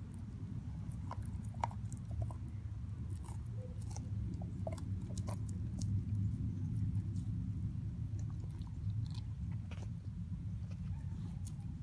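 Siberian husky gnawing and chewing a raw steak bone: scattered clicks and crunches of teeth on meat and bone, over a steady low rumble.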